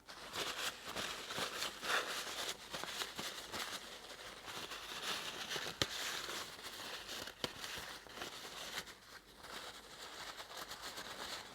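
Paper towel crinkling and rustling in the hands as grease is wiped off engine parts, with a couple of sharp ticks midway.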